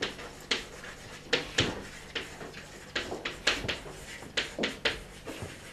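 Chalk writing on a blackboard: a quick, irregular series of sharp taps and short scratchy strokes as words are chalked up.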